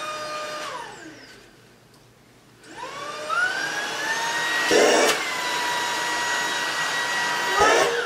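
Cordless stick vacuum motor being tried out. Its whine falls away as it is switched off, then after a short pause it starts again with a rising whine, runs steadily with a brief knock about halfway, and cuts off near the end.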